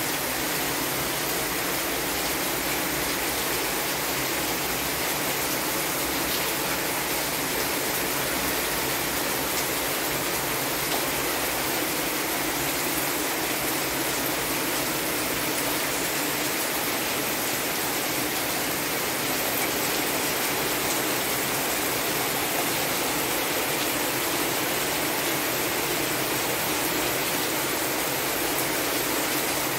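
Rain falling steadily, a continuous even hiss with no breaks.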